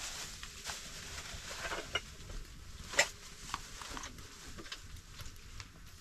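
Tomatoes being cut by hand with a small knife, the pieces dropping into a pot: soft cuts and scattered small taps, the sharpest about three seconds in.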